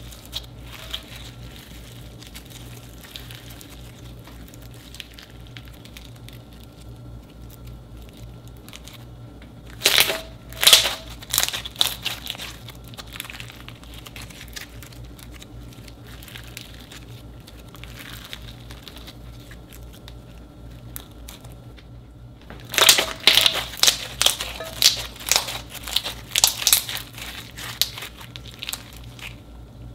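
Clear slime packed with holographic glitter flakes being kneaded, squeezed and stretched by hand: soft crackling and crinkling throughout, with two louder runs of crackly pops about ten seconds in and again from about twenty-three seconds until shortly before the end. A steady low hum runs underneath.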